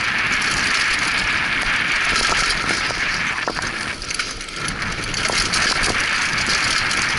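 Mountain bike rolling downhill over loose dirt and rocks: a steady rush of tyre and wind noise, broken by scattered short rattles and clicks as stones and the bike's parts knock.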